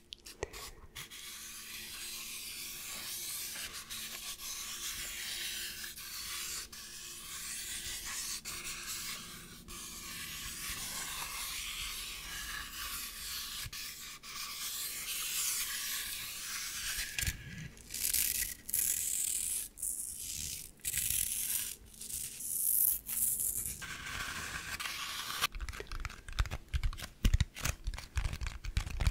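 Fingernails scratching and rubbing the textured surface of a large speckled decorative Easter egg held close to the microphone, a steady scratchy hiss. Partway through it breaks into separate strokes, and in the last few seconds it turns into quick fingertip tapping on the egg.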